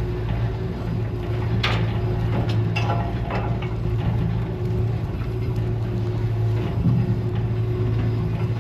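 A boat's outboard motor running steadily, with a few short knocks near the start.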